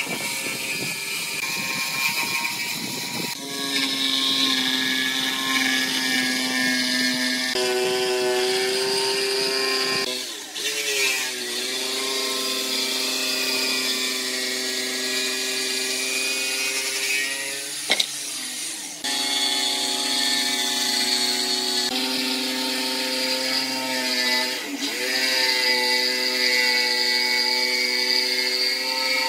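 Corded electric jigsaw cutting a curve through a pine board: a steady motor whine with the blade's rasp, its pitch shifting several times as the load changes, with a brief dip about ten seconds in and a sharp click near eighteen seconds.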